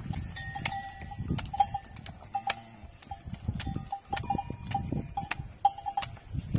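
Metal cowbells hanging from cattle's necks clanking irregularly as the animals move their heads to feed, often in quick pairs or triplets.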